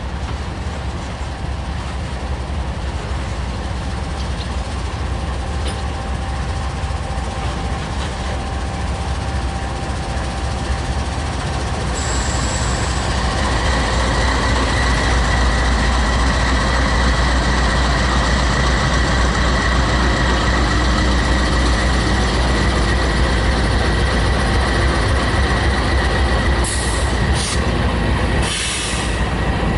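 Freight train rolling past, a steady rumble of wheels on rail that grows louder about twelve seconds in. A thin, steady wheel squeal joins soon after.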